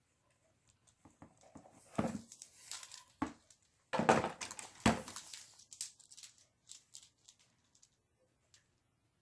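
Packaging being handled and torn open: crinkling and rustling in bursts, loudest about two seconds in and again around four to five seconds in, then a few light clicks.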